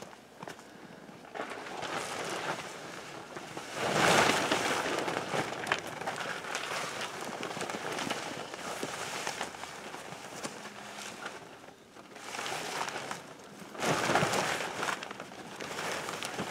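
Nylon fabric of an Eskimo FatFish 949 pop-up hub ice tent rustling and flapping as its sides are pulled out into shape, with small crackles throughout. Two louder bursts of rustling, about four seconds in and near the end.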